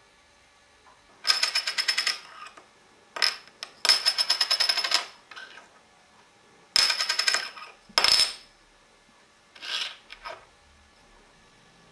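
Small metal objects rattling and jingling in about half a dozen short bursts, each a rapid run of clicks with a bright ringing edge.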